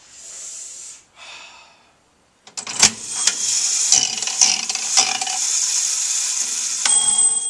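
Casino Crown toy slot machine running after its lever is pulled: its reels whirr loudly, with sharp clicks as they spin and stop. A steady high ringing tone starts near the end.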